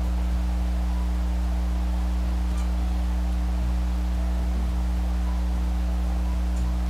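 Steady low electrical hum with a few fainter higher overtones, unchanging throughout. Nothing else stands out above it.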